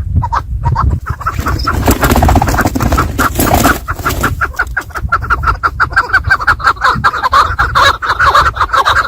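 Chukar partridge calling: a fast run of short repeated chuck notes that builds through the second half.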